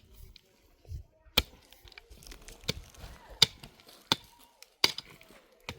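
A series of about six sharp chopping or striking impacts, irregularly spaced, each one a short crack.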